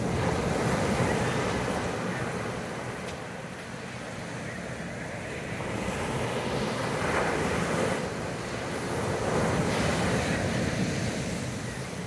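Ocean surf breaking and washing up a sandy beach. It swells louder three times as waves break: about a second in, again past the middle, and once more near the end.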